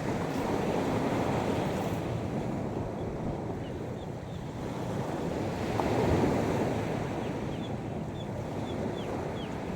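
Sea waves washing onto the beach, one wave swelling loudest about six seconds in. Short, high, falling chirps repeat through the second half.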